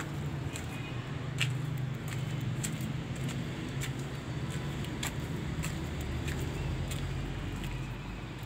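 Footsteps on a gritty floor, light scuffing taps about every second, over a steady low hum.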